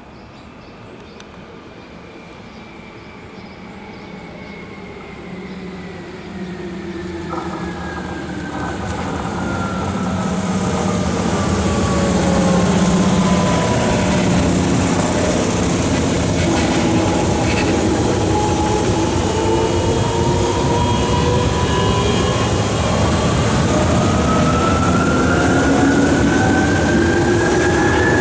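Tokyu 8500 series electric train running, its loud traction motor whine falling in pitch over the first half and rising again in the second, over a steady rumble. The sound grows louder for about the first thirteen seconds, then holds.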